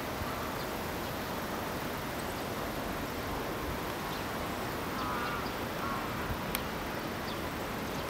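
Steady outdoor ambience of wind and rustling reeds, with a few faint, short bird calls about five seconds in.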